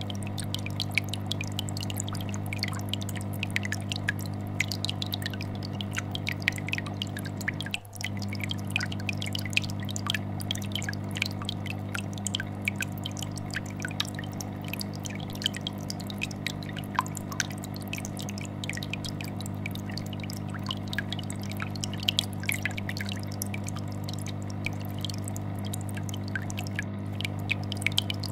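Aquarium air bubbler sending up a constant stream of small bubbles that pop and drip at the surface, over the steady vibrating hum of a fish tank filter. The hum dips briefly about eight seconds in.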